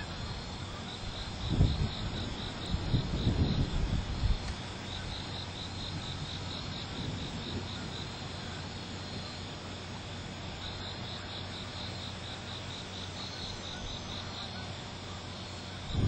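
Night insects chirping in a steady, regular pulsing rhythm, with a few low rumbles in the first four seconds.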